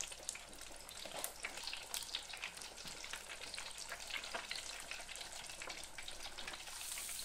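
Beef burgers deep frying in hot oil in a small electric deep fat fryer: a steady sizzle with many small, irregular pops and crackles.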